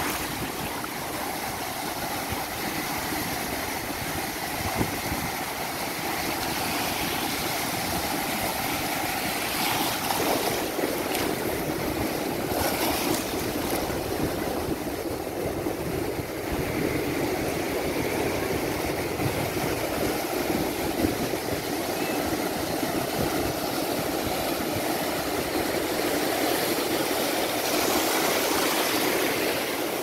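Sea surf breaking and washing over rocks in the shallows: a steady rush of waves and foam, a little louder near the end.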